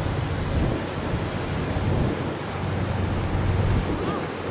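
Wind buffeting the microphone, a steady low rumbling noise, with a faint low steady hum underneath.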